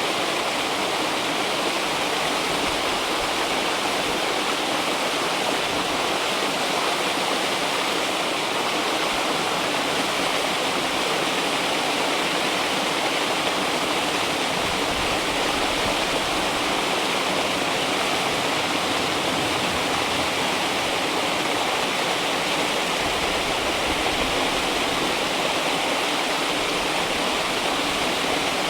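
River water flowing and rushing, a steady, even noise.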